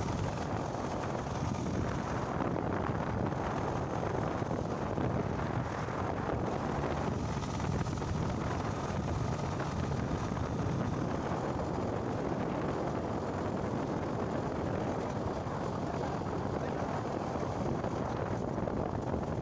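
Steady wind rush on the microphone with the road and engine noise of a moving motorcycle at cruising speed.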